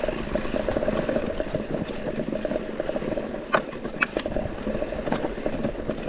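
Mountain bike running downhill over a rough trail: continuous tyre noise and a fast rattle of the bike, with two sharp knocks a little past the middle.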